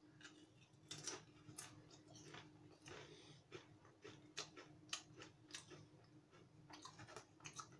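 A potato chip being chewed with the mouth closed: faint, irregular crisp crunches, several a second, over a faint steady low hum.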